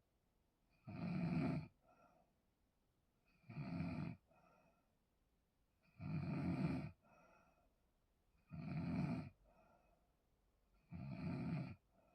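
A person snoring in a steady rhythm: five strong snores, one about every two and a half seconds, each followed by a fainter short sound.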